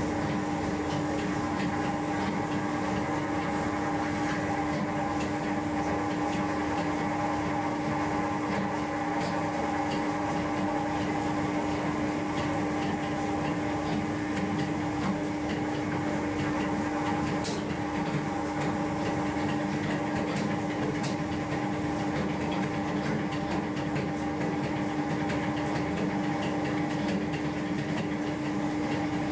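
Baguette moulding machine running with a steady, even hum, carrying two clear steady tones, a low one and a higher one, with a few faint ticks over it.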